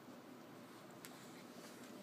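Near silence: room tone with one faint click about a second in.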